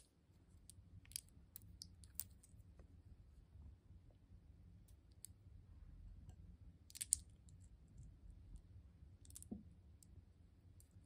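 Faint, scattered clicks and taps of small toppings being handled and placed on slime in a glass dish: plastic charms and wrapped candies knocking against fingers, each other and the dish. A slightly louder pair of clicks comes about seven seconds in.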